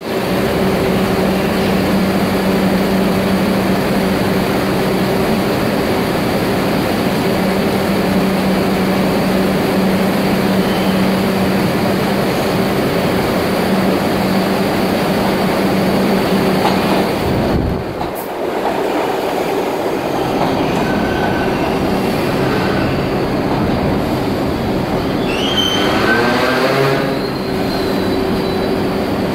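New York City subway R62 train pulling into an underground station: a steady loud rumble of wheels on rail with a constant hum, then squealing as it slows to a stop near the end.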